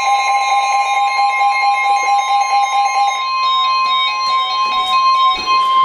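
Emergency Alert System attention signal: steady electronic alert tones sounding together. The lower tone stops about three seconds in while the higher one holds, with short stepping beeps over it in the second half.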